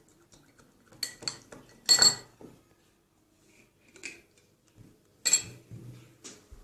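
A spoon clinking and scraping against a bowl while stirring liquid soap, with several irregular sharp clinks, the loudest about two seconds in.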